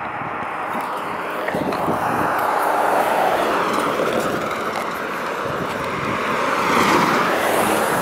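Cars passing on the road, their tyre and engine noise rushing up to a peak about three seconds in and again, louder, near the end.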